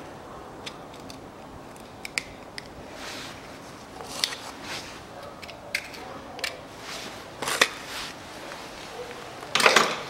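A thin metal blade scraping and clicking against a manual gearbox case: scattered short metallic clicks and scrapes, with a louder rough scrape just before the end.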